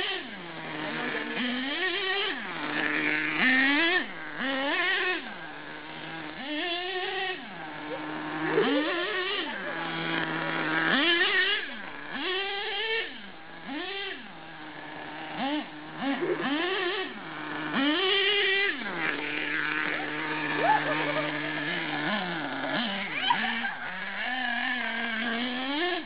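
HPI Savage XL RC monster truck's small two-stroke engine revving up and down over and over, each short high-pitched rev dropping back to a steady idle.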